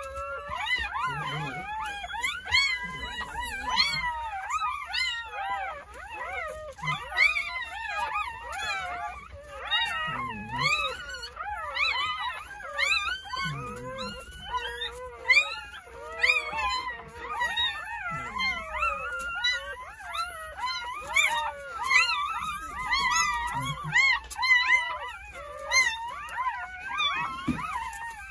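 A litter of newborn Jindo puppies crying and squealing without pause, many thin, high, wavering cries overlapping one another.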